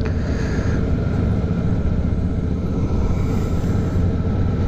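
Suzuki V-Strom 650 V-twin motorcycle running steadily at low road speed, with wind and road noise on the bike-mounted camera.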